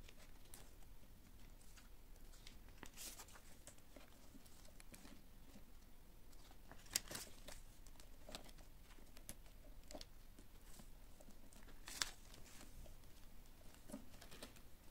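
Faint rustling and crinkling of paper banknotes and plastic binder pockets being handled as cash is taken out of a budget envelope binder, with a few sharper clicks, two of them standing out about halfway through and near the end.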